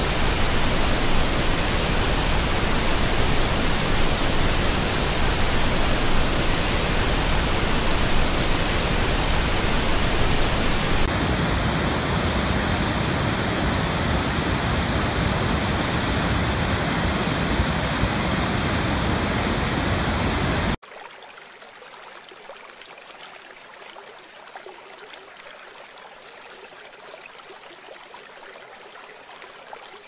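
A waterfall's loud, steady rush of water, which changes in tone about a third of the way in. About two-thirds in it cuts off abruptly to the much quieter wash of small waves lapping on a lake shore.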